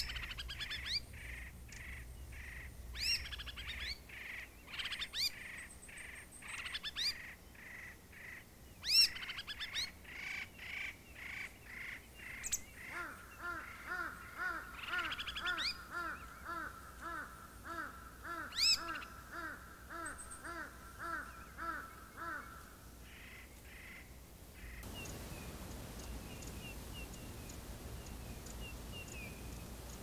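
Formosan laughing thrush (white-whiskered laughingthrush) calling: loud whistled notes repeated again and again, turning partway through into an even series of falling notes, about two a second, that stops about three-quarters of the way in. Near the end only a steady hiss remains, with faint high bird calls.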